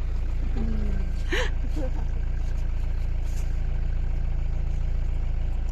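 An engine idling, a steady low hum that holds even throughout.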